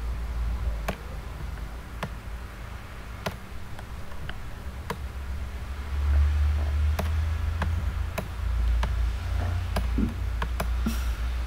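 Computer mouse clicking: a dozen or so scattered single clicks, over a steady low hum that grows louder about six seconds in.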